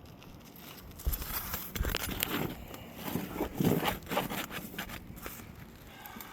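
Irregular scraping and rubbing of brittle asphalt shingles and crumbling underlayment being worked by hand, with several rough scrapes between about one and five seconds in.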